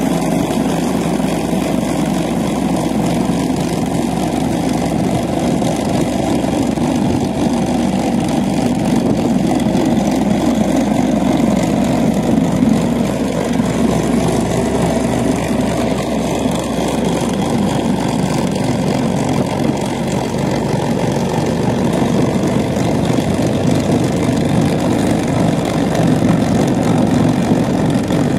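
Tractor engine running steadily under load, driving a DIFCO rotary implement as it works through the soil.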